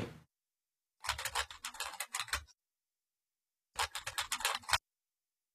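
Typing on a computer keyboard: two short bursts of key clicks, the first about a second in and the second nearly three seconds later.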